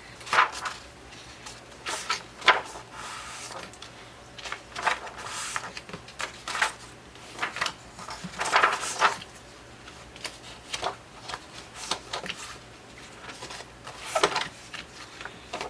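Pages of a spiral-bound paper workbook being turned and handled: irregular paper rustles and soft knocks, some longer slides of paper among them.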